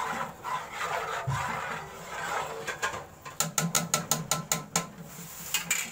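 A metal utensil stirs watery bajra khichdi in a large aluminium pot, scraping against the pot. A little over three seconds in comes a quick, even run of about ten scrapes or taps, some six or seven a second.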